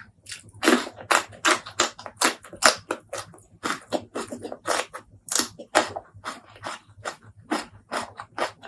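Close-miked chewing of crunchy food, a steady run of crisp crunches about three a second.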